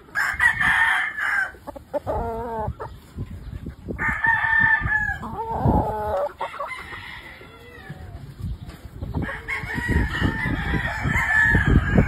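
Gamecock roosters crowing, several crows in turn: one at the start, another about four seconds in, and a longer one near the end, with shorter clucking calls between.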